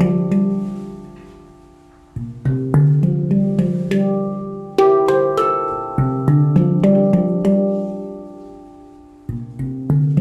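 Handpan (14-note D Low Kurd, Ember Steel) being played: low bass notes and higher tone fields struck in phrases, each phrase ringing out with long sustain before the next begins, twice fading nearly away.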